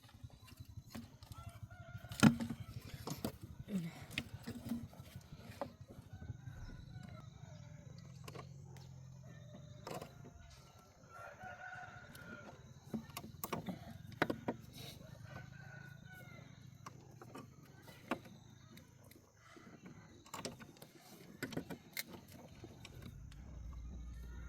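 Chickens in the background, with a rooster crowing. Scattered sharp clicks and knocks, the loudest about two seconds in, sit over a low steady hum.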